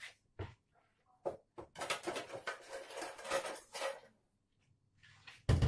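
Cooking oil heating in a wok on a gas stove, crackling for about two seconds, with a few scattered clicks before it. A dull thump near the end.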